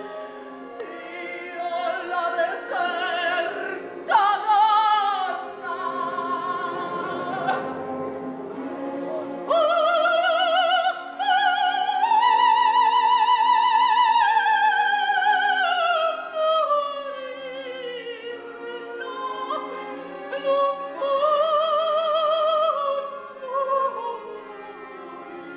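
Operatic soprano singing long, high sustained notes with wide vibrato over orchestral accompaniment. About ten seconds in she leaps up to the highest, loudest note, holds it, then slides slowly down.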